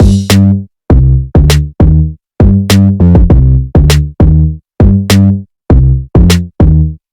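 Electronic ringtone music with a drum-machine beat: short, punchy low synth-bass notes, each with a sharp attack, in a choppy stop-start rhythm of about three notes a second with brief silences between.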